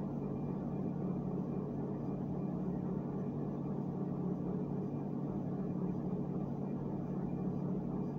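A steady low hum with a constant hiss of background noise, unchanging throughout, with no distinct events.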